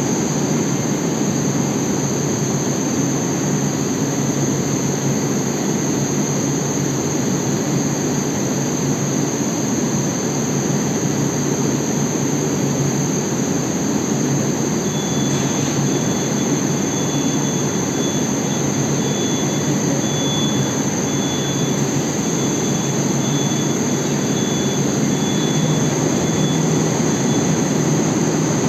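Steady hum and rushing noise of a Moscow metro 81-760 Oka train standing at the platform with its doors open. A faint high beep pulses through the second half.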